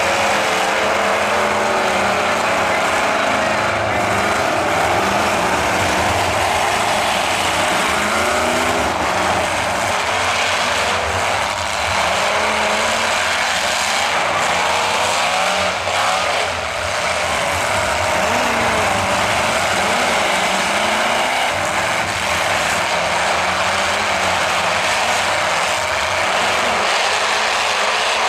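Engines of several demolition derby trucks and SUVs running and revving at once, their pitches rising and falling unevenly as they manoeuvre and ram each other.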